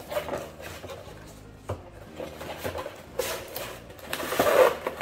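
Cardboard boxes being handled: rustling and a few knocks early on, then a louder stretch of cardboard sliding and rubbing from about three seconds in as the figure's box is pulled out of the shipping carton.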